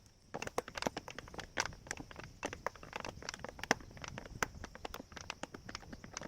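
Footsteps crunching through dry grass and weeds: a rapid, irregular crackle of snapping stems over a steady high hiss.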